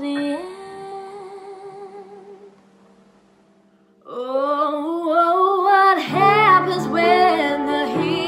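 A female voice sings a held note over piano that fades away, then after a brief near-silent pause a second female voice comes in on a rising held note. Fuller piano accompaniment joins about two seconds after she starts.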